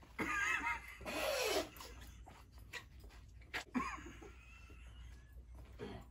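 Wordless pained vocal sounds from a person whose mouth is burning from a raw jalapeño: two short wavering moans in the first second and a half, then a click and a brief higher moan about four seconds in.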